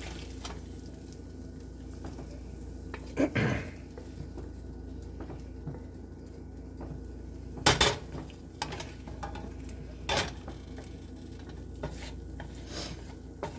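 Wooden spatula stirring okra and scraping it around a skillet, with a few sharp clacks of wood and pan against pan and bowl; the loudest comes near the middle.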